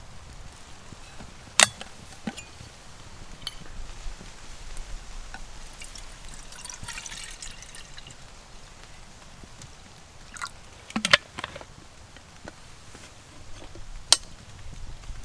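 Water pouring into a camping kettle for a couple of seconds and dripping, with a few sharp clicks and knocks from handling it: one early, a cluster about two-thirds through, one near the end.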